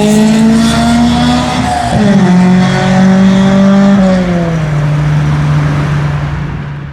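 Honda CRX's B16A four-cylinder VTEC engine running at high revs, its exhaust note dropping in pitch in two abrupt steps about two and four seconds in, then fading near the end as the car pulls away.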